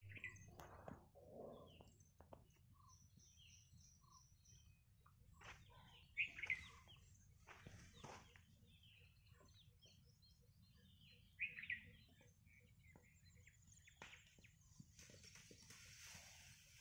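Faint birds chirping and calling, with two louder calls about six and eleven and a half seconds in and a few faint knocks in between.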